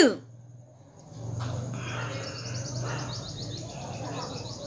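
The tail of a loud sneeze, its voice falling away at the very start. After a second of quiet, a low steady hum comes in, with birds chirping in quick high runs over it.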